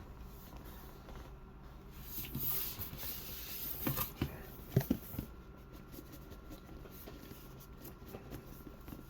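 Handling of an action figure's box packaging while it is being worked open: a soft rustling scrape about two seconds in, then a few scattered small clicks and taps.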